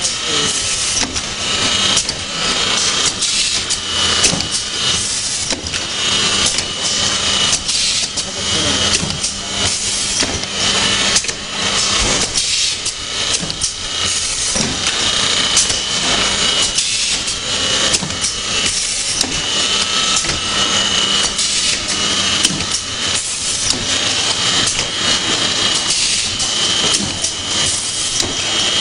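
Automatic paint-brush finishing line running: the rotary indexing table and its pneumatic stations clatter and click continuously, over a steady high whine.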